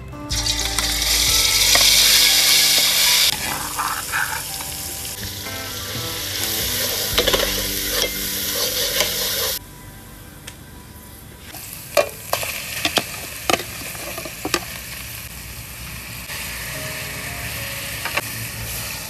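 Red chilli paste dropped into hot oil in an aluminium pot, sizzling loudly at once and then frying on more quietly. After a sudden drop in level, a metal ladle gives several sharp clinks against bowls and pot.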